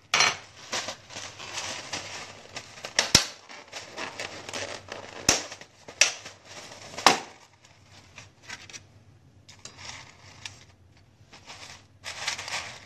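Kitchen handling sounds: a run of sharp clicks and cracks, the loudest about three, five, six and seven seconds in, with crinkling between, as food in a plastic container is handled by hand.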